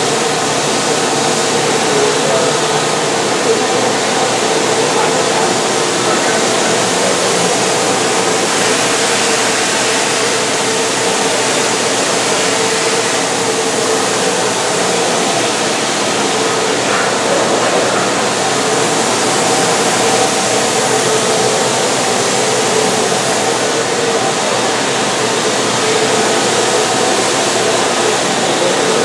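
Mazak VTC-250D/50 CNC vertical machining center running while cutting parts: a steady mechanical whir with a held mid-pitched hum, unchanging throughout.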